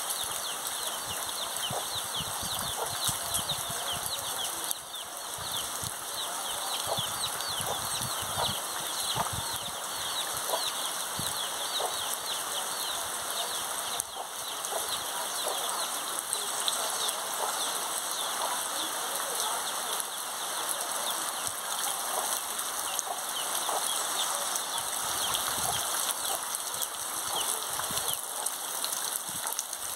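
Heavy rain falling steadily, with domestic chicken chicks peeping over and over through the first half; after that, rain alone.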